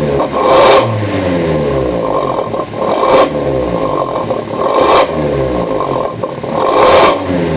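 Vehicle engine running through an aftermarket twin-outlet "suos" exhaust, blipped to higher revs about every two seconds and dropping back between. The exhaust keeps its growly, snoring "ngorok" note at both low and high revs.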